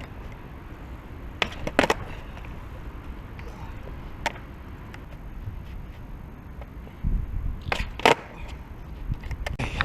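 Skateboard wheels rolling on concrete with sharp clacks of the board hitting the ground: two about a second and a half in, one near four seconds, and two more near eight seconds. The rolling rumble grows louder near the end.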